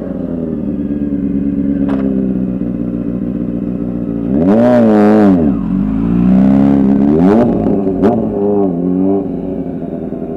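Honda CBR600F4i stunt bike's inline-four engine with a custom shorty exhaust, ridden past at low speed, the throttle blipped in sharp revs that rise and fall about four and a half and seven seconds in, then more revs as it pulls away. A sharp click sounds near two seconds and again near eight.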